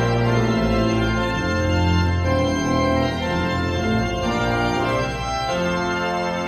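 Church pipe organ, newly rebuilt and enlarged after fire damage, playing held chords over a deep pedal bass, the chords changing every second or so.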